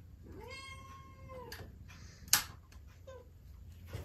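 A cat meowing: one long meow that rises and falls in pitch, then a single sharp knock, the loudest sound, and a brief second meow shortly after.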